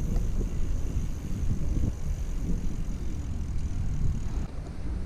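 Bicycle ride on a city street: a low, fluttering rumble of wind buffeting the camera microphone together with tyre and road noise.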